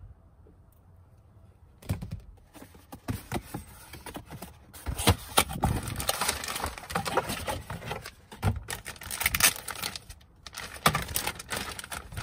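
Packaging being handled: a cardboard parts box opened and a plastic bag crinkling as a new plastic cup holder trim panel is unwrapped. It starts about two seconds in as irregular crackling and clicking.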